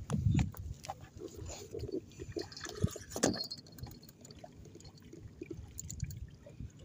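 Water sloshing and gurgling in the gaps between shoreline boulders, with irregular knocks and clicks.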